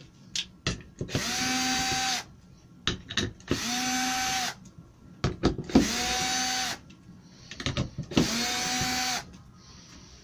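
Cordless drill-driver backing out the four screws of a concealed cabinet hinge from a melamine door panel. Four short runs of steady motor whine, about a second each, with light clicks between them as the bit is moved from screw to screw.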